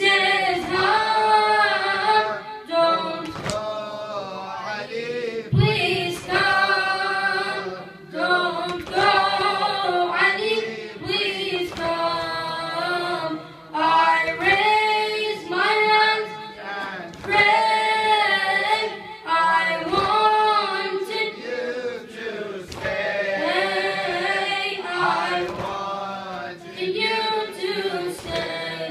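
A boy chanting a latmiya, a Shia mourning lament, unaccompanied into a microphone, in long melodic phrases with short breaks between them.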